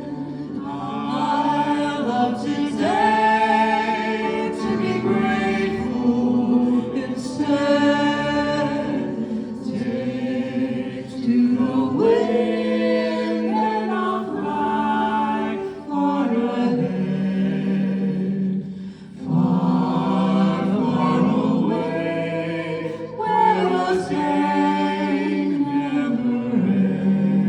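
A choir singing a cappella in several parts, in phrases of held notes with brief breaths between them.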